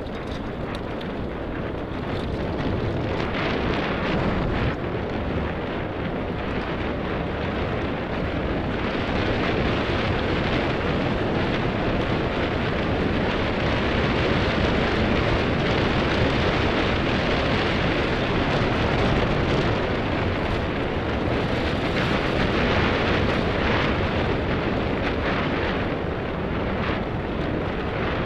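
Mountain bike descending fast on a gravel forest track: tyres rumbling over the loose stones, with steady wind noise rushing over the body-mounted camera's microphone.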